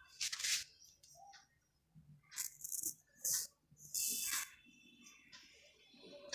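Straight razor with a half blade scraping through shaving foam on facial hair in about four short, scratchy strokes.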